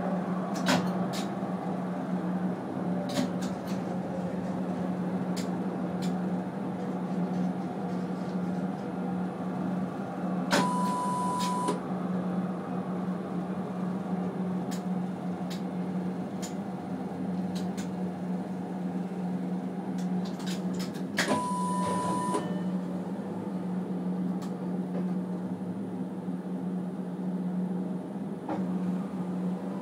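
Inside a Brest tram: a steady electrical hum with scattered clicks and rattles. Two electronic beeps, each about a second long and about ten seconds apart, sound while the tram is at a stop.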